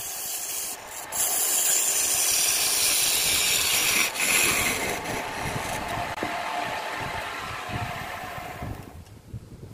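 Gouge cutting a spinning wooden bowl blank on a homemade wood lathe: a loud, steady scraping of shavings being peeled off, over the running lathe. The cutting eases off and the sound dies away about nine seconds in as the lathe is stopped.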